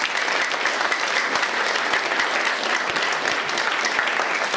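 Audience applauding steadily, the many claps blending into an even clatter.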